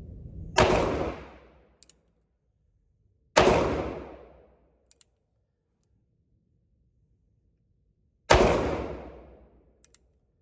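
Three shots from a North American Arms .22 Magnum mini revolver, the second about three seconds after the first and the third about five seconds later, each ringing out for about a second. A faint click follows each shot.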